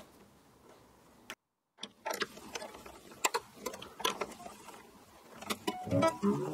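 After a quiet first two seconds, a classical guitar's geared tuning machine and roller click and tick irregularly as a new wound nylon bass string is wound on. Near the end the string begins to ring, rising in pitch as it is tightened.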